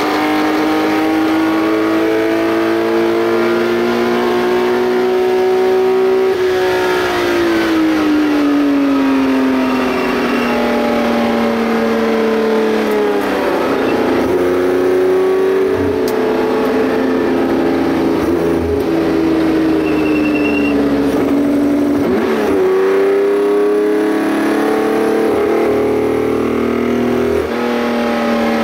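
Porsche 910 racing engine heard from inside the open cockpit as the car slows. The engine note rises for a few seconds, then falls, and jumps back up twice at downshifts.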